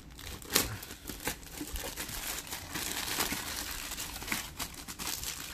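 Thin clear plastic bag crinkling and rustling as it is handled and pulled off a hard-shell carrying case, with irregular sharp crackles, the loudest about half a second in.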